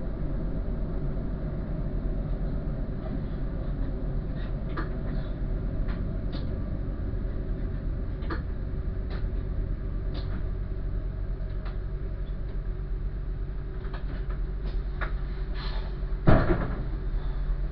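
Diesel train heard from the driver's cab, its engine running with a steady low hum, with scattered light clicks and one loud sharp thump about sixteen seconds in as the train comes to a stand.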